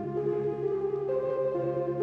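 Background music: slow ambient music with long held notes that change every half second or so.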